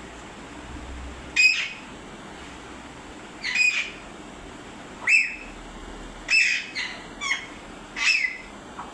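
Pet parrot giving about seven short, shrill calls, one every second or two at first and coming quicker towards the end.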